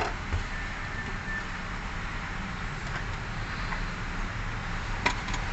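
Steady low background hum with a sharp click right at the start and another about five seconds in, from the fuel pump assembly being handled and fitted.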